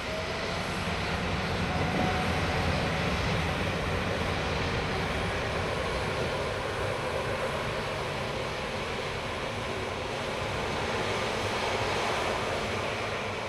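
A Boeing 777-300ER's General Electric GE90-115B turbofan engines spooling up for takeoff: a faint rising tone in the first couple of seconds as the engines build up, then a steady, loud jet roar.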